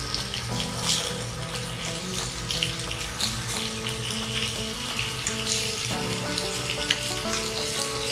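Abalone sizzling steadily in a frying pan over a gas burner, with sharp clicks here and there as chopsticks turn the pieces against the pan. Background music plays under it.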